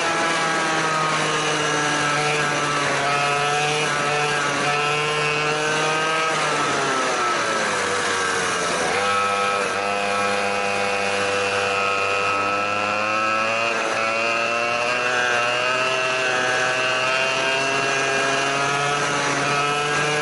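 Go-kart engine running hard through a lap, heard from on board; its pitch drops about seven seconds in as the kart slows for a corner, then climbs back up and holds as it accelerates again.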